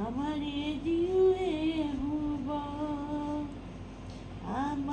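A woman humming a slow lullaby, a melody of long held notes with gentle glides between them.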